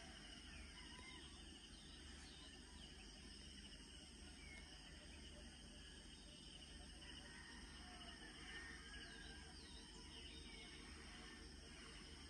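Faint outdoor daybreak ambience: insects trilling steadily, with scattered short bird chirps and a faint low rumble underneath.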